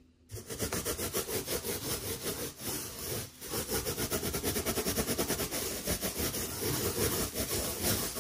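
Rubber balloon rubbed quickly back and forth against hair, a scratchy swishing at about five strokes a second that starts suddenly and pauses briefly once. The rubbing charges the balloon with static electricity.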